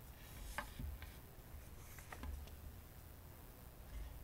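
Quiet room tone with a few soft clicks and low thumps: a small book being handled on a wooden lectern close to the microphone.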